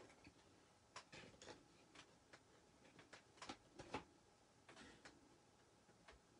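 Faint, irregular taps and clicks of a wooden yardstick and a pen being set down and shifted on a wooden box frame.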